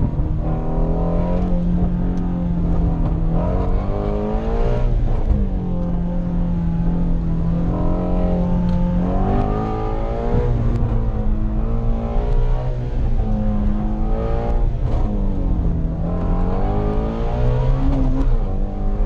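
Ford Shelby GT350R's 5.2-litre flat-plane-crank V8 heard from inside the cabin under hard driving, its pitch climbing and falling several times as the throttle is opened and lifted.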